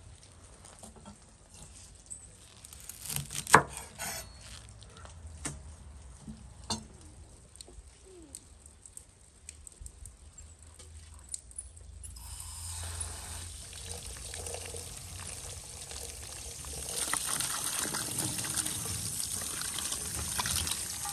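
Water running and splashing onto dill and onions in a stainless-steel colander as a hand rinses them. The water starts about halfway through and gets louder for the last few seconds; before it there are only scattered light knocks.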